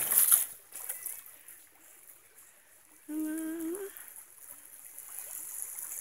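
Faint trickling and lapping of shallow river water, with a single short humming note about three seconds in that rises slightly at its end.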